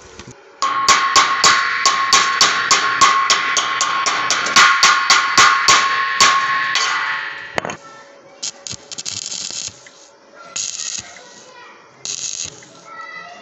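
Loud music with a steady drum beat for about the first seven seconds, fading out. After it come short bursts of stick-welding arc crackle, made as the electrode is struck and arced on the steel tube.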